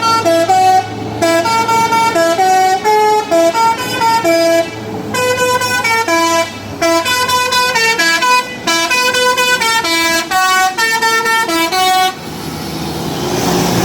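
A bus's musical multi-note air horn of the telolet kind, playing a fast tune of short notes that step up and down, for about twelve seconds. Then it stops and a rising noise builds near the end.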